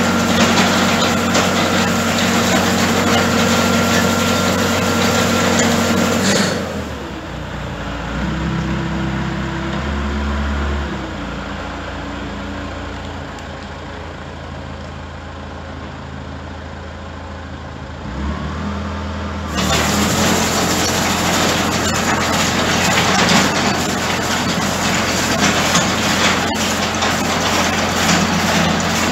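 Loader engine running with an IEP Bale Commander bale shredder working, shredding and spreading straw. The noise drops to a quieter, lower-pitched run from about a quarter of the way in until about two-thirds in, then the full, loud run returns.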